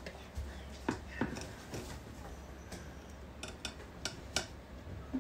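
Kitchen utensils clicking and tapping against dishes: a handful of light, scattered clicks over a few seconds, the sharpest a little past four seconds in.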